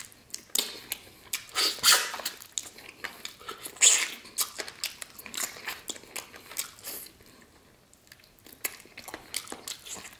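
A person biting into and chewing roasted chicken eaten off the bone by hand: a string of short wet mouth clicks and smacks, loudest about two and four seconds in, with a brief quiet pause near eight seconds.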